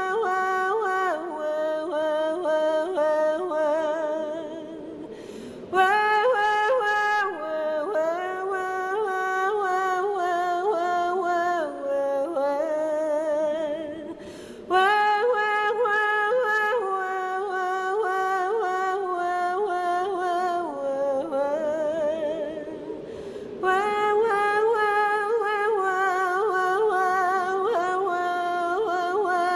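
A woman singing a cappella in long held phrases with vibrato, each breaking off briefly for a breath about every nine seconds.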